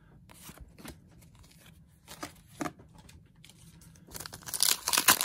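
A few light rustles and clicks of card handling, then about four seconds in a Pokémon booster pack's foil wrapper crinkles loudly as it is torn open.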